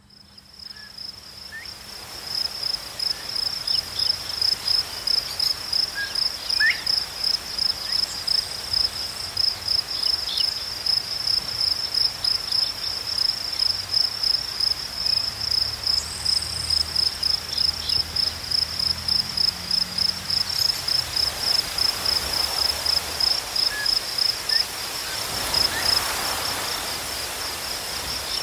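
A singing insect trilling on one steady high pitch, pulsing about twice a second. It fades in over the first two seconds.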